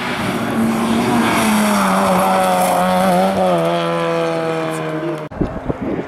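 Rally car engine at full throttle passing the stage at speed, loud and building, its pitch dropping in a few steps. The sound cuts off abruptly near the end.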